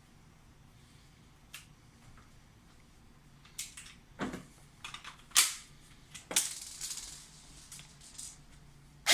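Scattered clicks and sharp clacks of an airsoft gun being handled and readied for firing, sparse at first and coming more often in the second half.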